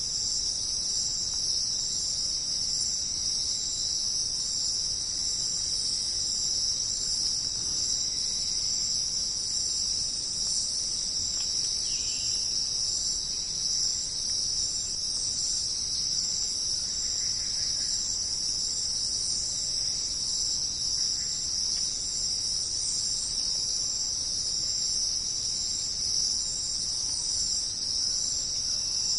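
Dense insect chorus, a steady high-pitched shrill that holds unbroken with no let-up.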